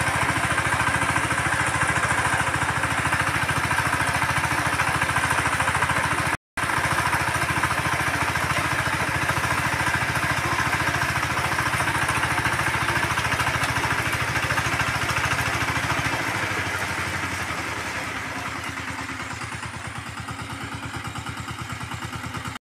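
Walk-behind power tiller's single-cylinder diesel engine running steadily under load as its rotary tines churn the soil, with a fast, even chugging. It grows quieter over the last several seconds.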